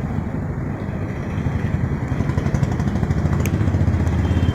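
An engine running steadily, a low rumble with rapid, even firing pulses.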